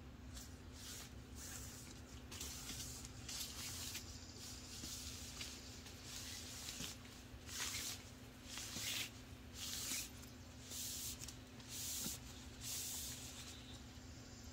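Nylon fabric of a CampPal one-person tent rustling and swishing as it is pulled and shifted by hand, in a string of short swishes that are loudest about halfway through.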